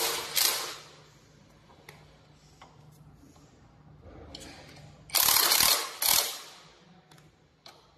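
Cordless impact wrench hammering a kickstand mounting bolt tight in short bursts. One burst ends just after the start, and two more come close together about five seconds in. A few faint clicks fall in between.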